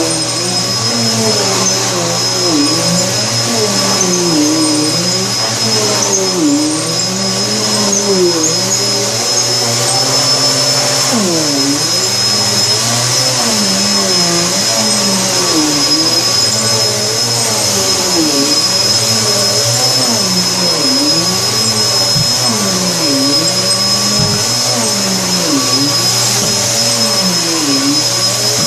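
Vacuum cleaner running steadily over carpet with a high motor whine. Its lower tone dips and recovers about once a second as the head is pushed back and forth.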